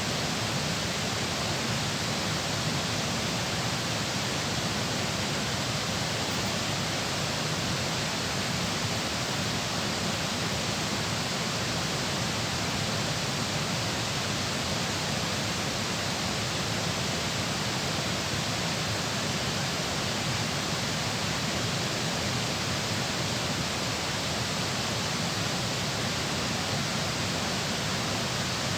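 Steady rushing of water flowing at a dam, an even unbroken roar with no change.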